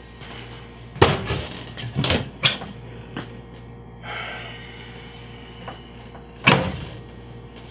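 Kitchen cupboard doors being opened and shut: several sharp knocks in the first few seconds and another loud bang of a door near the end.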